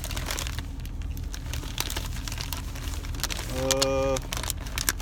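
Plastic bait packages crinkling and rustling with irregular clicks as bags of soft plastic lures are rummaged through. There is a short hummed voice sound about three and a half seconds in, over a steady low hum.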